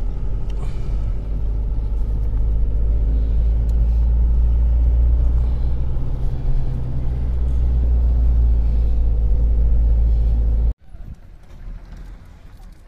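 Engine and road noise of a car driving uphill, heard from inside the cabin as a loud, steady low rumble. It cuts off suddenly about eleven seconds in, leaving faint outdoor sound.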